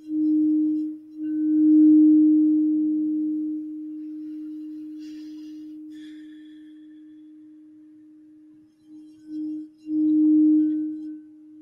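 Crystal singing bowl played by circling its rim with a mallet, ringing one steady low tone. The tone swells loud in the first few seconds, fades slowly, then swells again near the end.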